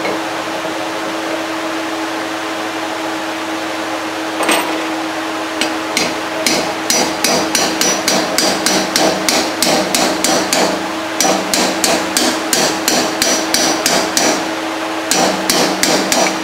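Hammer tapping a new sealed steel ball bearing down into a commercial washing machine's cast-iron bearing housing to seat it: rapid light strikes about three a second, with a brief pause near the end. A steady background hum runs under it, and is all there is for the first four seconds before a single strike.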